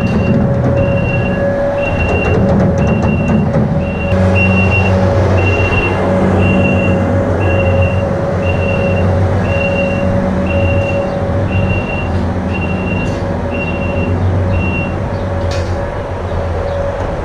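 A vehicle's engine running steadily while its reversing alarm beeps about once a second, stopping near the end.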